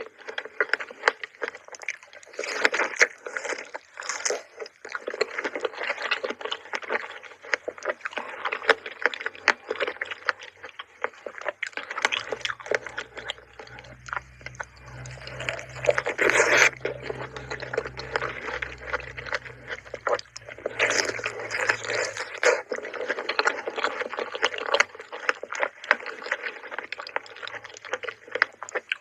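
Close-miked chewing of fresh fruit: continuous squishy, wet bites and chewing with quick clicking mouth noises, made for ASMR.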